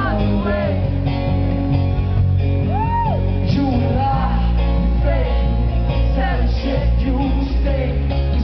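A live acoustic rock song: a male singer singing into a microphone over guitar accompaniment.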